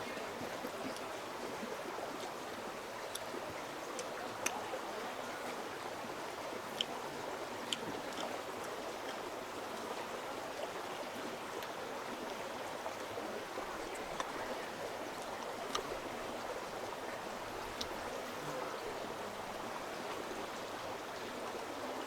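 Stream water flowing steadily, with a few light clicks here and there.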